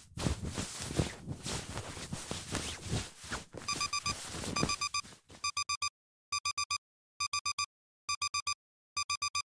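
An electronic alarm beeping in tight groups of four, one steady pitch, the groups repeating about once a second, starting about four seconds in. Before it there is a hissing, crackling noise that stops as the beeping takes over.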